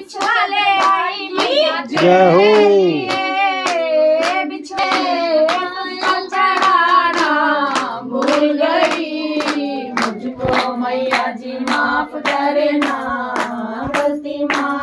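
Devotional bhajan to the mother goddess, sung with a wavering, ornamented melody over steady hand clapping about twice a second.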